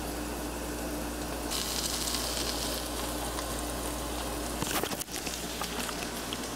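Sliced carrots and snap peas sizzling as they fry in oil in a pot, the hiss swelling a little for about a second early on. A short clatter about three-quarters of the way through.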